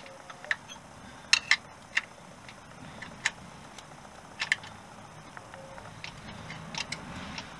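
Scattered sharp clicks and taps from the crankshaft oil seal plate of a VW Golf mk2 engine as it is worked by hand off its light locating pins.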